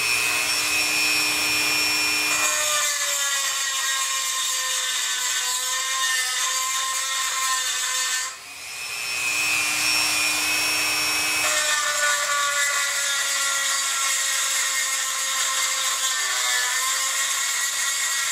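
Dremel 4000 rotary tool with a porting bit grinding metal while port matching an 80cc two-stroke bicycle engine. It makes a high steady whine whose tone shifts as the bit is pressed into the port and eased off, with a brief let-up about eight seconds in.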